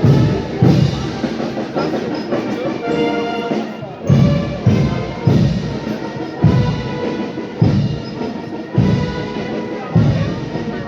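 Marching band playing in a parade: sustained brass notes over a bass drum beating about once or twice a second.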